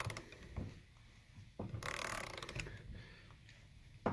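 A ratchet wrench clicks in short runs as it slowly turns the screw of a bushing press tool, forcing a pressed-in bushing out of an aluminium camber arm. There is one run of clicks about two seconds in and a single sharp click near the end.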